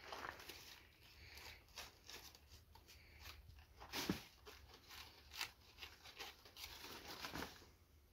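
Faint, irregular crackling and rustling as a banana plant's stem and dry leaves are handled while it is tied with string, with a sharper snap about four seconds in.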